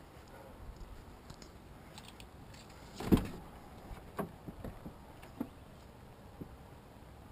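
Pickup truck's driver door unlatched and pulled open with one sharp clunk about three seconds in, followed by a few lighter clicks and knocks.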